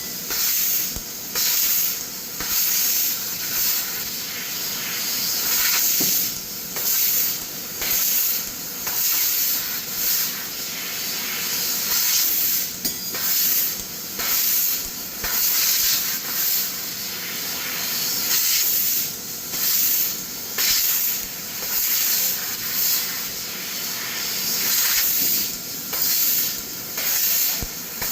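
CNC laser cutter cutting steel sheet: a loud hiss of the cutting head's assist gas that swells and drops about once a second as cuts start and stop.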